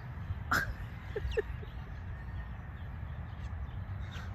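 A bird gives one short, sharp call about half a second in, followed by two brief softer calls a moment later, over a steady low rumble.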